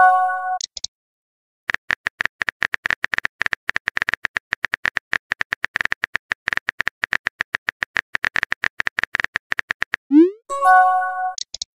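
Texting-app sound effects: a short bright chime, then a long run of rapid keyboard-tap clicks as a message is typed out letter by letter. Near the end a quick rising whoosh and a second chime.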